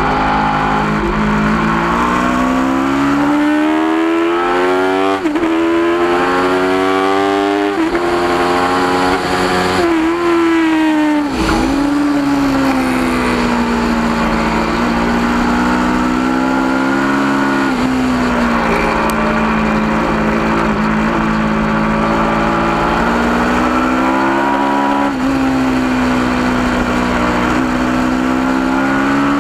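Aprilia RSV4's V4 engine at high revs, pulling hard through the gears with three quick upshifts, then a sharp drop in revs under a downshift and steady revs through a long corner before pulling again near the end. A rush of wind noise runs under the engine.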